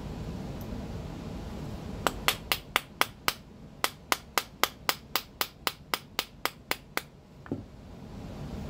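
Small hammer tapping a 1/8-inch steel pin punch to drive out a pistol's hammer pin: about twenty quick, light, sharp taps at roughly four a second, starting about two seconds in with a short pause early on, then one softer knock near the end.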